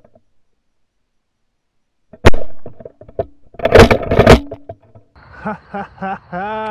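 A pump-action .410 shotgun fired at a pigeon in flight: one sharp, very loud shot about two seconds in, followed a second and a half later by a second loud, longer burst. A man's voice follows near the end, with one drawn-out call.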